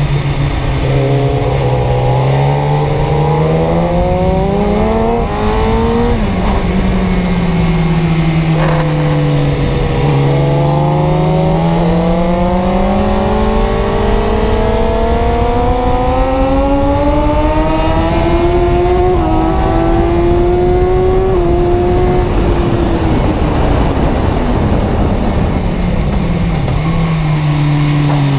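Car engine running, its pitch rising and falling slowly as the revs climb and drop: a short climb, a dip, then one long climb before the revs fall away again.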